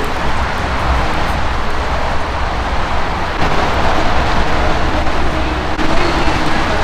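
Heavy cloudburst rain drumming steadily on the roof of a covered riding arena, a loud even hiss with a low rumble underneath.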